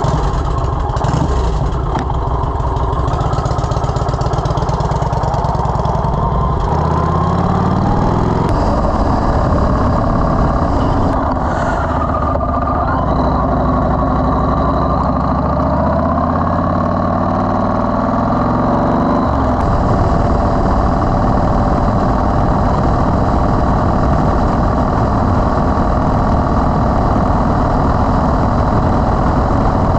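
Yamaha Road Star XV1600 V-twin engine running, its pitch climbing several times through the middle stretch as it pulls away and speeds up, then holding steady.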